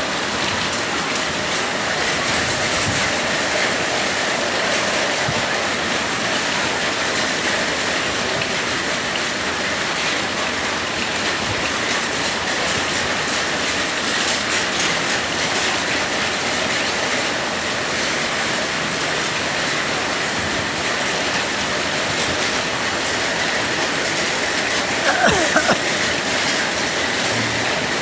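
Heavy rain pouring down steadily: a dense, even hiss of downpour.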